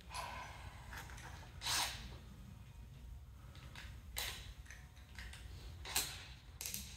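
Quiet hand-handling of small metal hardware: five light clicks and taps spaced a second or two apart, over a steady low hum.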